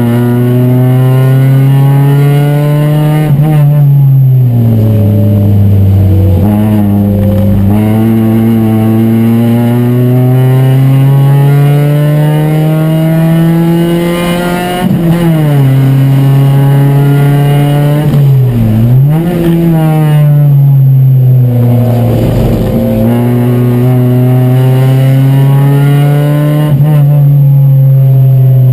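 In-car sound of a Chevy race car's four-cylinder engine under hard acceleration. The engine note climbs steadily and drops sharply several times at gear changes and lifts for corners.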